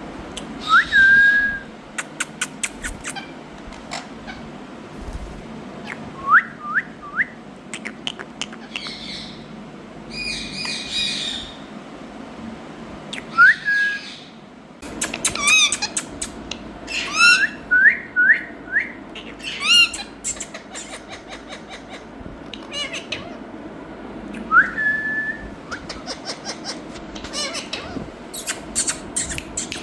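Indian ringneck parrot whistling and squawking: short rising whistles, some in quick runs of three, mixed with rapid clicking and harsher squawks.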